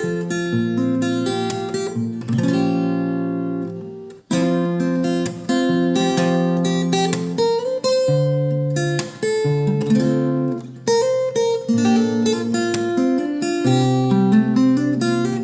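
Acoustic guitar playing an instrumental interlude between sung verses of a Tagalog love ballad, picked and strummed chords. The music cuts out briefly about four seconds in, then resumes.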